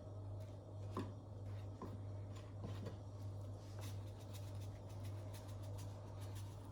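Salt being sprinkled onto sliced aubergine: faint scattered ticks of falling grains and light handling, over a steady low hum.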